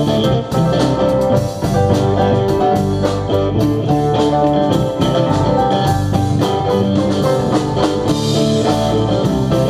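Live band playing an instrumental rock passage: electric guitar and keyboard over a steady drum beat, with no vocals.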